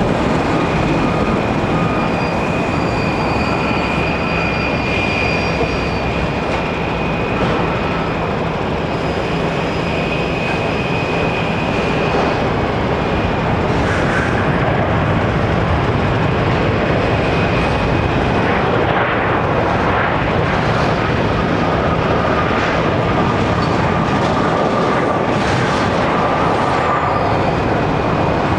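Boeing 737-800 airliner's CFM56-7B jet engines during landing and rollout on the runway: a steady, loud jet noise with a few faint high whining tones running through it.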